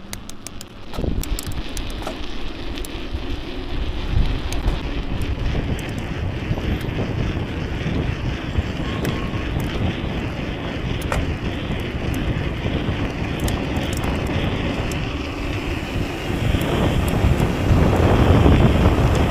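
Wind buffeting the microphone as a mountain bike coasts fast down a paved hill, tyres rolling, with the Spank Hex rear hub freewheeling quietly underneath. The wind noise grows louder near the end as speed builds.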